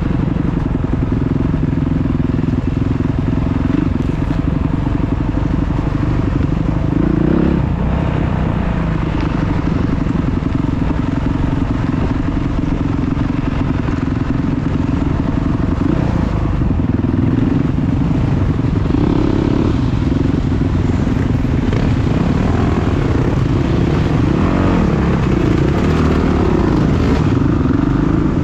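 Enduro dirt bike engine heard from the bike being ridden, its revs rising and falling again and again over a steady rough rush of noise.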